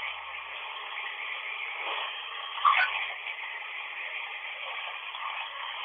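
Steady hiss of running water, heard through a narrow-band recording with no deep or very high sound. A brief, louder blip comes about two and a half seconds in.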